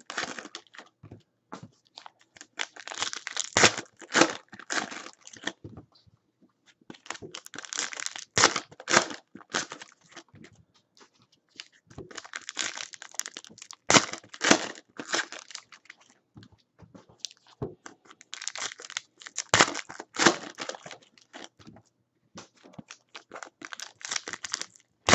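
Foil wrappers of Panini Prizm basketball card packs being torn open and crinkled, one pack after another, in about five bursts of crackling with short pauses between.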